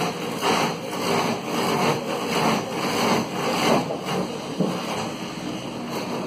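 Baudin clog-copying machine carving a wooden clog blank: a loud, rough rasping of the cutter in the wood that swells and fades irregularly as the cutter moves along the clog.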